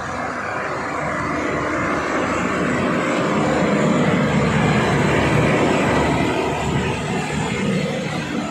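A 70 MPa high-pressure plunger water pump unit running, its engine and pump making a steady, loud mechanical noise that grows louder toward the middle and eases near the end.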